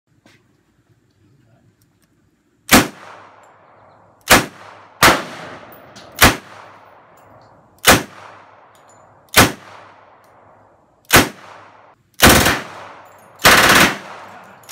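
Early-WWII Thompson M1928 submachine gun with a Cutts compensator firing .45 ACP: about seven single shots, unevenly spaced a second or so apart, then two short bursts near the end.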